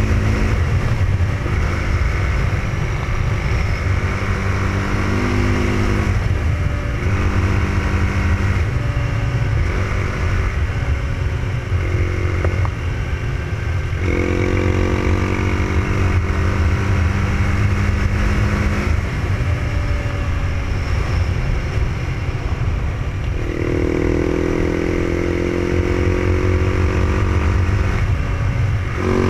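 KTM 690 SMC supermoto's single-cylinder engine running under way at road speed. Its note rises and falls with the throttle, climbing about halfway through and again near the end, over heavy wind rush on the handlebar-mounted microphone.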